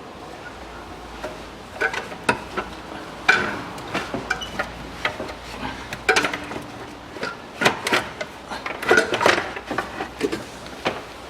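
Metal clinking and clanking as the exhaust manifold is worked off the engine: irregular knocks and scrapes of metal parts and tools, some with a short ring.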